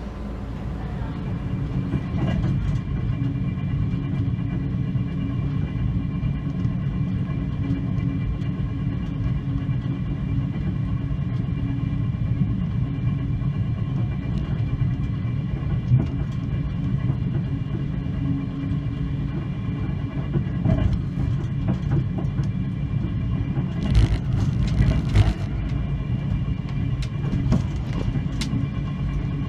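Steady low rumble of a Queensland Rail Sunlander passenger train rolling along the track, heard from on board, with a steady hum over it. A short run of clatter comes a few seconds before the end.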